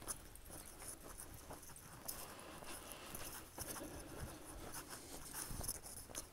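Faint footsteps and scuffing on a dry dirt trail, with scattered light ticks.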